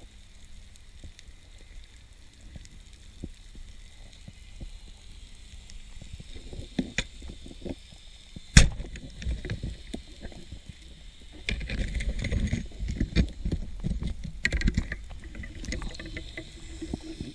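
Underwater: a speargun fires into a rock hole with one sharp, loud crack about eight and a half seconds in, after faint crackling. From about eleven seconds on come dense heavy knocks and scraping as the spear and the speared fish are worked against the rock.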